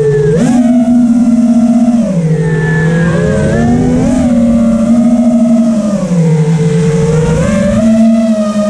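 FPV racing drone's electric motors whining, the pitch stepping up and down with the throttle, over rushing wind noise.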